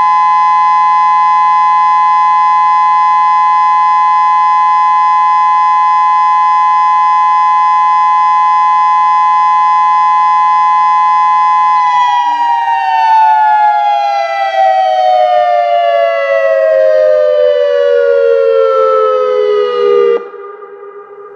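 Federal Signal Modulator 6024 electronic tornado siren sounding its steady alert tone, then falling smoothly in pitch for about eight seconds in a wind-down before cutting off abruptly near the end, leaving a much fainter steady tone.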